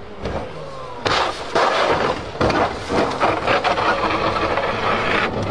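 A rally car's engine note falls briefly. About a second in, it gives way to a loud crash as the car ploughs off the road through brush and small trees onto gravel: a run of crunching, snapping branches and repeated knocks and thuds.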